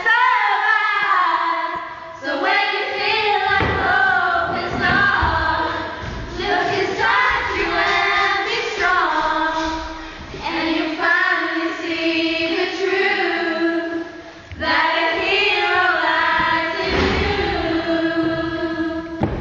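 A group of girls singing together, phrase after phrase, with short breaks between phrases.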